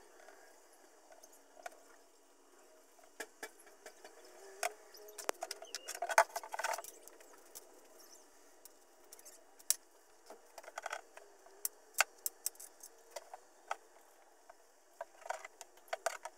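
Light clicks, taps and rattles of screws and small sump parts being handled while a fuel sump is fitted to a plastic fuel tank.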